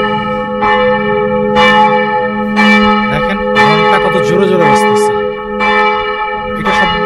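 Church bells ringing, struck about once a second, several bells' tones overlapping and ringing on between strokes.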